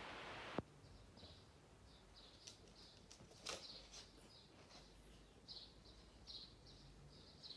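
Faint birds chirping, short high chirps repeating irregularly over quiet room tone. About half a second in, a louder hiss cuts off with a click.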